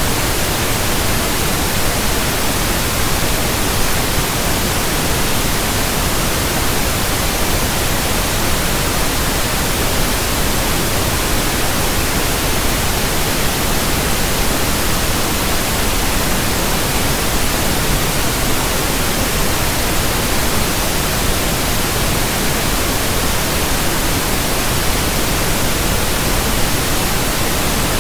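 Steady synthetic pink noise: an even, unbroken hiss across the whole range of pitch.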